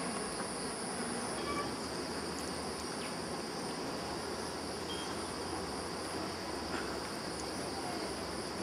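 Insects droning steadily in a continuous high-pitched chorus, over a rural background hiss.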